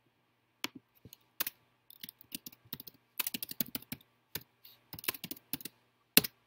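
Computer keyboard typing: an uneven run of keystrokes, quickest in a burst about halfway through, with one louder keystroke near the end.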